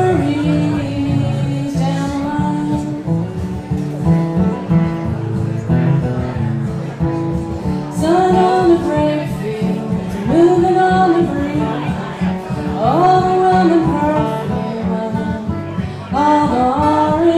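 Live country-folk song: two acoustic guitars strumming chords under a sung vocal line that comes in phrases every few seconds.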